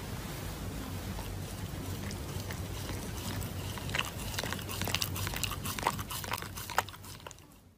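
A dog chewing and tearing at a paper tissue held in its paws: crisp crackling bites and clicks, thickest in the second half, then fading out.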